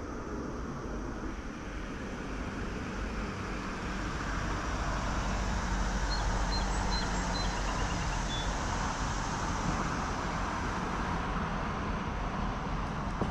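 Road traffic: a vehicle passing, heard as a steady rushing noise with a low hum that swells in the middle and eases again.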